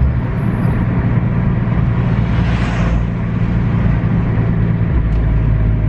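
Nissan GT-R's twin-turbo V6 engine and road noise heard from inside the cabin, cruising gently as a normal daily drive with a steady low drone. A brief whoosh of noise rises and fades about two and a half seconds in.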